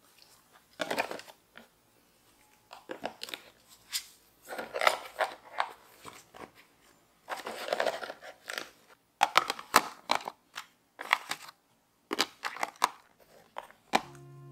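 Cardboard boxes, plastic tubes and bottles handled and set into a plastic storage caddy: irregular clicks, knocks and short rustles of packaging against plastic.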